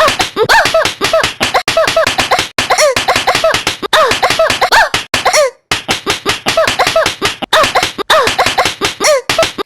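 Repeated laughter in quick short bursts, several a second, each rising and falling in pitch.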